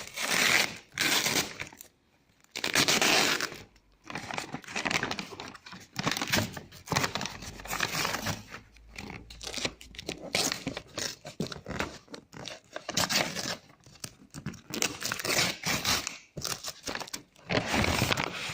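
Outer packaging being torn open: repeated ripping and crinkling in irregular bursts with short pauses between them.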